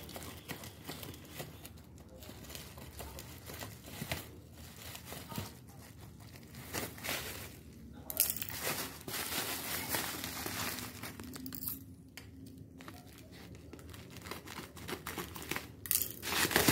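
Bubble-wrap mailer and plastic packaging crinkling and rustling irregularly as a parcel is torn open and unwrapped by hand, loudest about halfway through.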